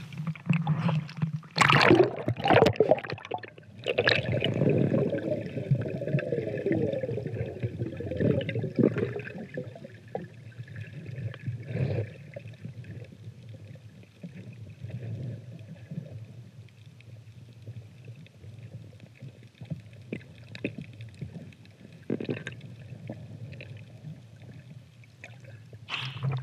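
Splashing as a snorkeler ducks under the surface, then muffled underwater sound with bubbling and gurgling that fades to a low rumble, and more splashing near the end as he comes back up.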